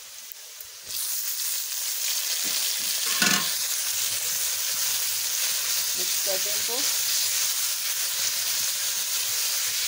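Chopped tomatoes hitting hot oil with browned onions and garlic in a steel pan, setting off a loud sizzle about a second in that then runs on steadily while a spatula stirs them, with a brief clatter of the spatula a few seconds in.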